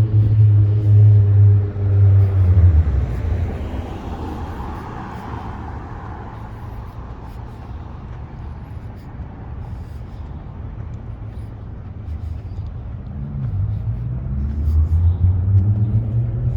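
Street traffic: a motor vehicle's engine hum passes by and fades over the first few seconds. Quieter road noise follows, then another vehicle's engine grows louder near the end.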